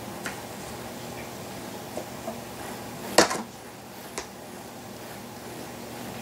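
A few light taps and clicks, with one sharper knock about three seconds in, over a steady low hum of room tone.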